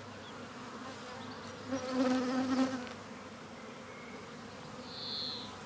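Honeybees buzzing around an open hive as their frames are moved. About two seconds in, the buzz swells for around a second as a bee passes close.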